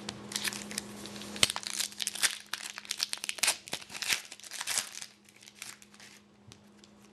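Foil trading card pack wrapper crinkling and tearing as a hockey card pack is ripped open, a quick run of crackles that dies away about five seconds in.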